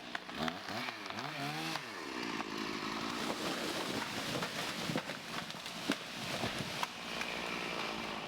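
Stihl 460 two-stroke chainsaw running at a distance, its engine revving up and down early on, then running on steadily with a few sharp knocks.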